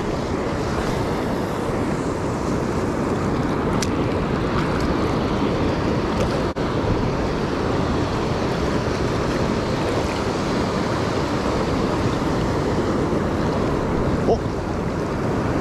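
Steady rush of ocean surf washing around, mixed with wind buffeting the microphone. A couple of faint ticks come through, about four seconds in and again near the end.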